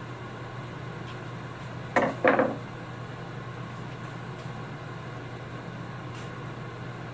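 Two knocks in quick succession about two seconds in, over a steady low hum.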